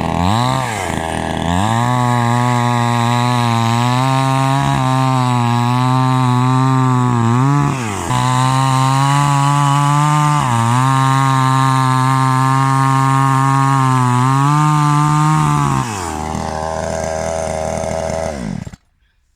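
Flinke FK 9600 two-stroke petrol chainsaw running at high revs, its note dipping briefly a few times. It drops to idle near the end and then cuts off suddenly.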